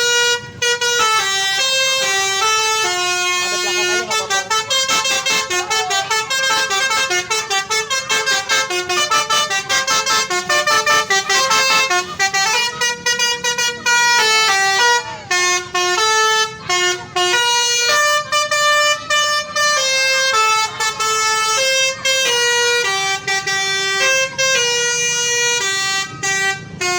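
Indonesian bus telolet horn playing a melody: a loud string of horn notes stepping up and down in pitch, some held and some in quick runs of short toots.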